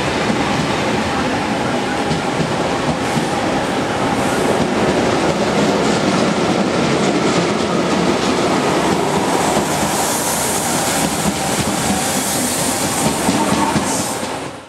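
Coaches of a loco-hauled passenger train passing close by at speed: a steady rush of wheels on rail with clatter from the track, and more hiss in the last few seconds. The sound cuts off suddenly at the end.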